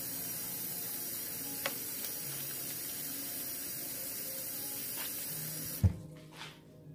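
Kitchen tap running steadily into a metal strainer in a stainless steel sink, a steady hiss with a couple of faint clicks. Near the end the hiss cuts off suddenly with a sharp knock.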